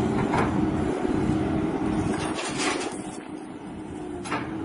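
An engine running steadily, a little quieter for about a second near the end.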